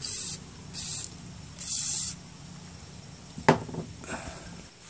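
Three short bursts of WD-40 aerosol spray hissing from the can's straw onto a sticky lawn mower recoil starter's coil spring and rope, which don't retract well. A single sharp click follows about three and a half seconds in.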